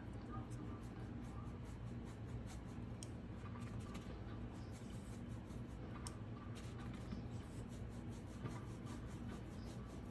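Mop brush with no water swishing back and forth over a canvas panel through wet acrylic paint: a soft, rapid scratching of bristles on the canvas, several strokes a second, over a low steady hum.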